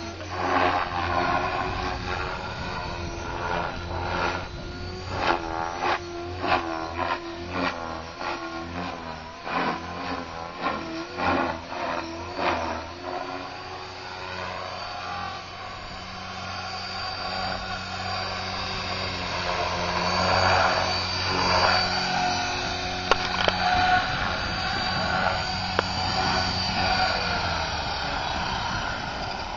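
Align T-Rex 500 flybarless electric RC helicopter in flight: the rotor blades and electric motor whine, the pitch wavering as it manoeuvres. For several seconds early on the rotor noise pulses about twice a second as the blade pitch flips back and forth through aerobatic moves, then the sound steadies and grows louder as the helicopter comes in low.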